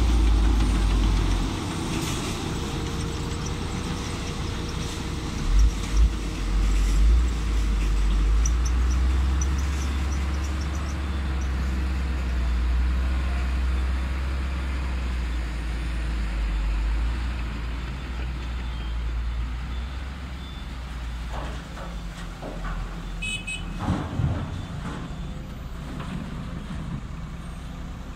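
Diesel engine of a Hino dump truck running as the truck manoeuvres, a steady deep rumble with a few knocks about six seconds in and a short cluster of sharp clicks and a knock near the end.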